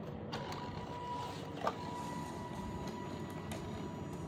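The robot car's two small DC motors start with a click when the 12-volt battery is connected, then run with a steady whine as they spin the wheels. There is a sharper click about a second and a half in.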